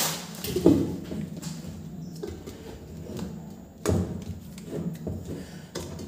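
Plastic lids and stainless-steel mixer-grinder jars being handled and set down on a table: a few light knocks and clunks, the loudest about four seconds in.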